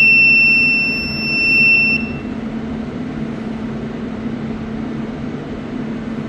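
An electronic beeper sounds one long, steady, high-pitched beep that stops about two seconds in, dipping slightly in loudness midway. It comes from a handheld aura scanner taking a reading. A steady low machine hum runs underneath throughout.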